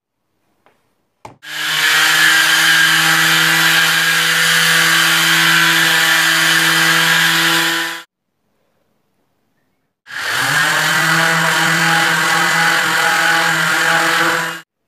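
Random orbital sander running on an Australian oak board, in two steady runs of about six and four seconds. The motor hums over the hiss of the pad on the wood. The second run rises in pitch as the sander spins up, and each run stops abruptly.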